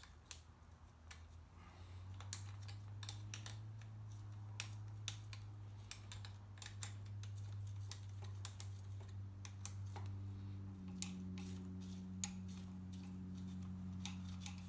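Light metallic clicks and ticks of small wrenches working a throttle cable adjuster and lock nut on a motorcycle handlebar. A low steady hum comes in about two seconds in.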